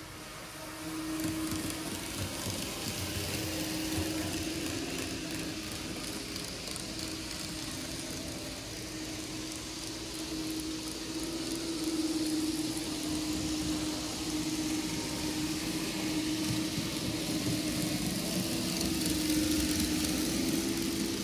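Model railroad train running on the layout: a steady mechanical hum that comes up about a second in and holds, with a hiss over it.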